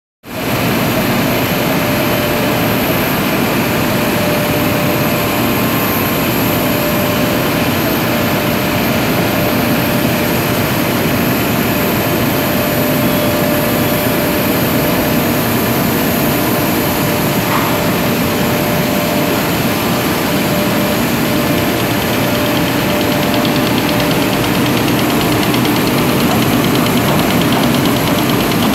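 A machine's motor running steadily, a constant loud mechanical drone with a faint steady hum.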